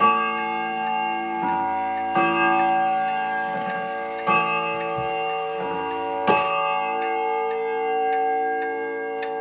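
German Black Forest 8-day spring-driven wall clock's bim-bam chime striking its bell, four main strokes about two seconds apart, each note ringing on, over the steady ticking of the movement.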